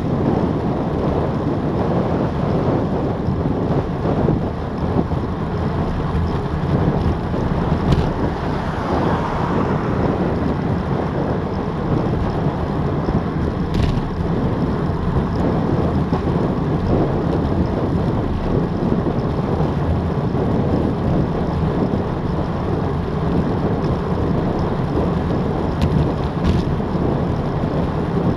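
Steady wind noise buffeting a Garmin VIRB action camera's microphone on a bicycle coasting downhill at about 25 mph.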